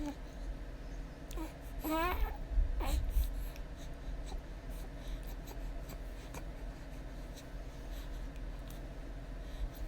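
A short wavering, warbling vocal squeal about two seconds in, then a brief second noise, among faint clicks and low room noise: one of the odd waking-up noises.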